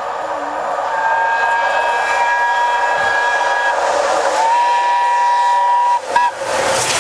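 Peppercorn A1 Pacific steam locomotive Tornado approaching at speed, sounding its whistle in two long blasts and then a brief toot. Near the end a rising rush as the engine draws level.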